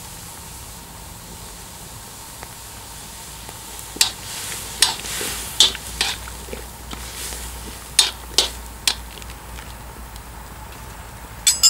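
A metal spoon stirring vegetables in a cast-iron kazan. Sharp clinks and scrapes against the pot begin about four seconds in and come several times, over a steady hiss from the simmering pot.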